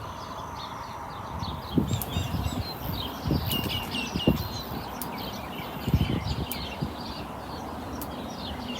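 Small birds chirping and twittering repeatedly in short high calls, with a few brief low thuds in between.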